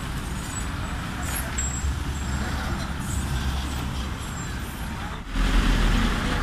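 Road traffic with vans and cars passing close, a steady rumble of engines and tyres. About five seconds in it breaks off and comes back as a louder, lower engine rumble.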